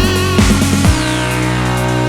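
Electronic dance music with a steady beat of deep, pitch-dropping bass kicks and sustained synth tones.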